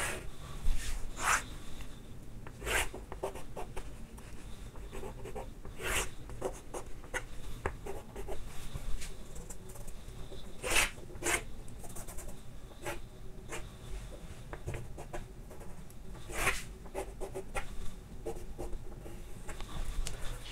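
Chalk scraping and tapping on a chalkboard in scattered short strokes as dimension lines are drawn.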